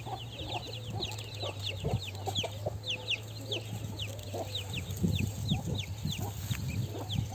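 Chickens clucking, with quick high falling chirps several times a second over a steady low hum.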